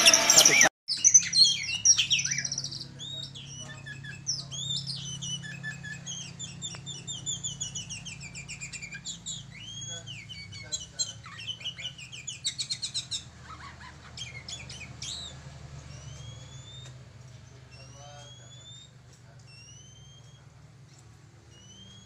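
Oriental magpie-robin (kacer) singing: a varied run of clear whistles, chirps and fast trills that thins after about 15 s to single rising whistles. A louder passage cuts off abruptly within the first second.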